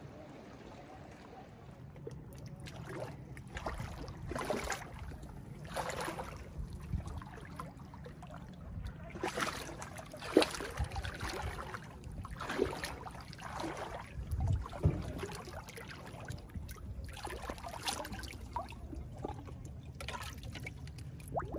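Seawater lapping and sloshing against low rocks at the water's edge, in irregular small splashes every second or two over a low steady wash.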